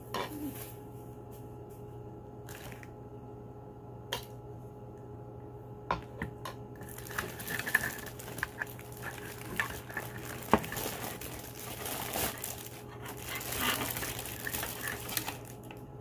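Clear plastic packaging crinkling and rustling as it is handled, with scattered clicks and clinks of small hard pieces. The handling grows busier about seven seconds in, over a steady low hum.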